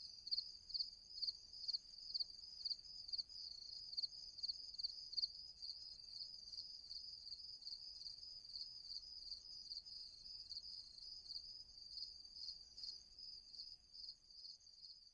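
Crickets chirping: a steady, high-pitched trill pulsing about twice a second, growing slightly fainter toward the end.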